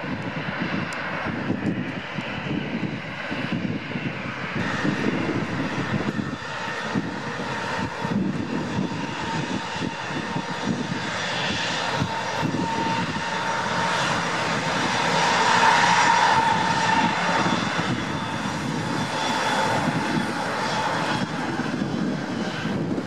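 Airbus A320-214's CFM56-5B turbofan engines at taxi thrust: a steady jet whine over a rumble, swelling to its loudest about two-thirds of the way through.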